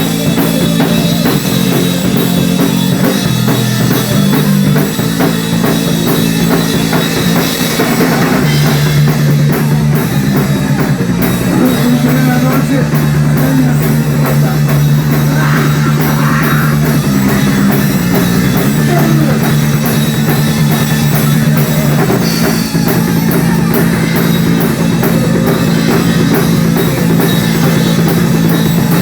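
A rock and roll band playing loudly, with the drum kit keeping a steady beat under a bass line that moves between notes.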